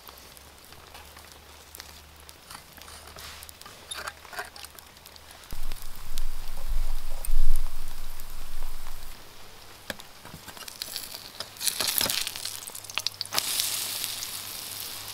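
Pancake batter sizzling in a small frying pan over a wood campfire, with the fire crackling and popping throughout. The sizzle swells near the end as the pancake is flipped. A low hum comes and goes in the middle.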